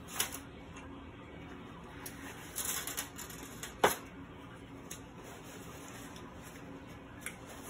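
Aluminium foil and a paper napkin crinkling as they are handled and folded together: a few scattered short crackles, the sharpest about four seconds in.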